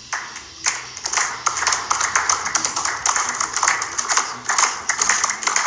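Applause: many hands clapping in a dense, irregular patter, starting sharply just under a second in.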